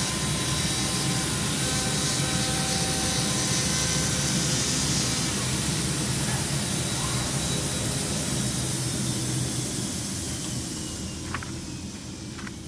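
IECHO BK3 digital knife cutting machine running as its cutting head cuts a sheet of brown board: a steady machine noise with a low hum and hiss. The noise falls off about ten seconds in, and a few short clicks and paper sounds follow near the end as the cut piece is lifted out.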